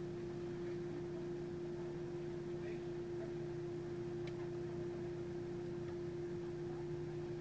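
Steady hum with one held tone over faint hiss, unchanging throughout, with a faint click about four seconds in.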